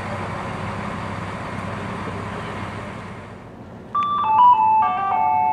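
Steady rumble and low hum from a MÁV V43 electric locomotive at the platform. Then, about four seconds in, a station public-address chime: a short run of electronic tones stepping down in pitch, which signals a passenger announcement.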